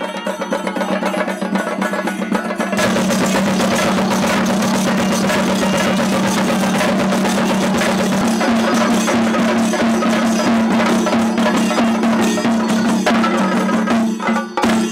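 Chenda drums beaten rapidly with sticks, a dense unbroken roll of strikes that grows louder about three seconds in, over a steady low drone.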